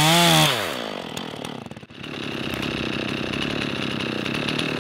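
Two-stroke chainsaw revving freely at high throttle, not cutting. The throttle is released about half a second in, the revs fall away over about a second, and the saw then settles to a steady idle.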